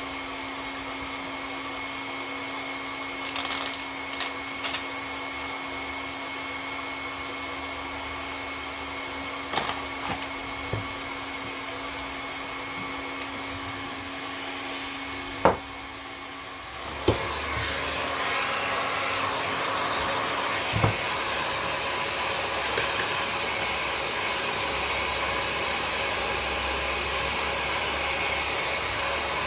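A steady electric hum broken by a few sharp clicks and taps. A little over halfway through, a louder air blower starts and runs steadily.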